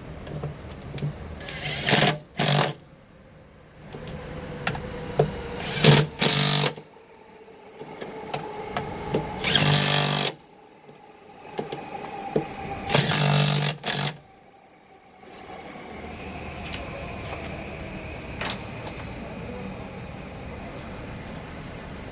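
Motor-driven tool running in short bursts, four groups of them, each under about a second long, over the first fourteen seconds. After that only a steady, quieter background sound remains.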